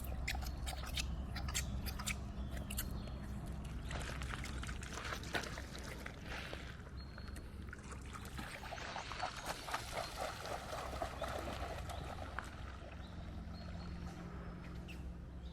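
River water trickling and splashing, with scattered small clicks.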